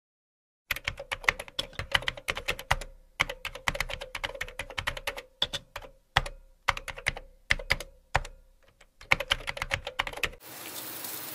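Keyboard typing sound effect: quick runs of key clicks broken by a few short pauses. Near the end the clicks stop and a steady hiss begins.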